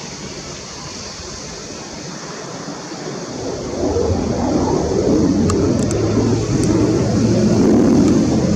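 Mirage 2000-5 fighter's single SNECMA M53-P2 turbofan heard in flight during a display manoeuvre: a jet rumble that swells from about three seconds in and is loudest near the end.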